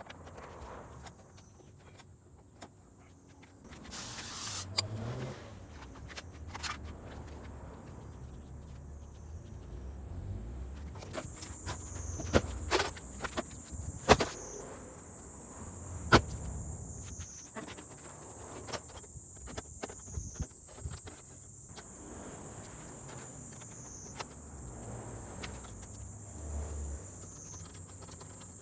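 Insects chirring in a high, steady trill that grows much louder about eleven seconds in and then repeats in phrases a few seconds long, each dipping slightly in pitch at its end. Scattered sharp clicks and knocks come over it, the loudest near the middle.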